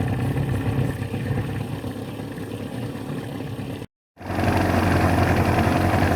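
A boat's motor running steadily. It cuts out for a moment about four seconds in and comes back louder.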